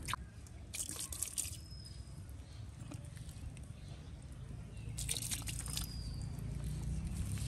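Wet mud and water squelching and splashing in two short crackly bursts, about a second in and again about five seconds in, each followed by a short high chirp.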